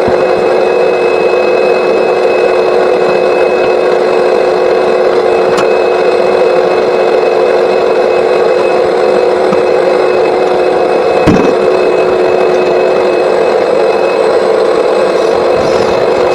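Vacuum running steadily at full power while lint is cleared from a clogged dryer vent, with one short knock about eleven seconds in.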